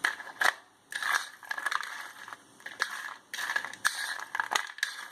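Crisp deep-fried masala-coated peanuts crunching in a string of short, irregular bursts.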